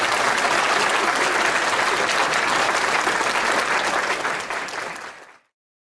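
Audience applauding steadily, fading out about five seconds in.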